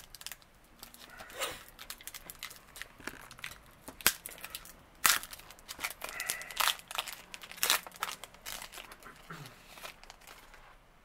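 Foil wrapper of a trading-card pack being torn open and crinkled by hand: irregular sharp crackles and rustles, dying away near the end.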